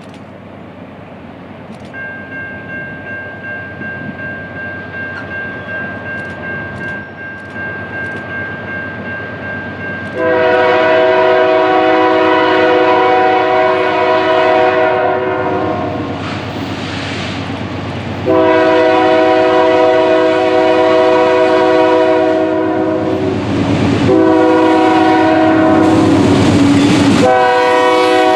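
CN diesel locomotive horn sounding several long blasts over the rumble of the train. The blasts begin about ten seconds in, after the rumble has been building.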